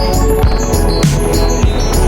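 Background music with a steady electronic beat, a deep bass note sliding down on each beat about every 0.6 s under held synth notes.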